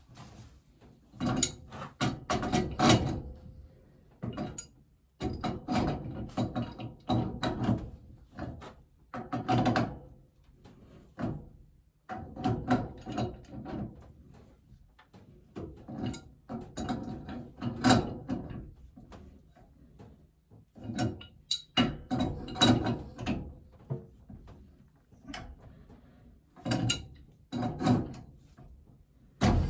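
Pipe wrenches tightening threaded steam-pipe fittings: metal clicking and grating as the wrench jaws bite and turn the fitting, in spells of a second or two with short pauses while the wrench is reset.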